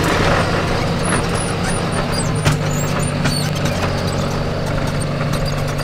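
Tractor engine running steadily under way, heard from inside the cab, with scattered clicks and rattles and one sharper knock about two and a half seconds in.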